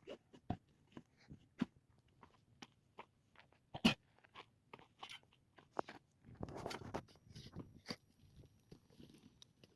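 Irregular crunches, clicks and knocks of hand work with earth and wood. One sharp knock comes about four seconds in, and a short scraping rush around six and a half seconds.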